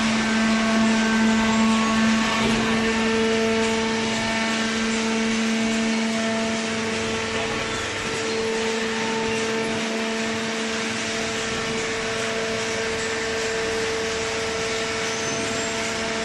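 Hydraulic cardboard baler machine running: a steady motor-and-pump hum with a constant whine and hiss, some of the higher tones fading in and out.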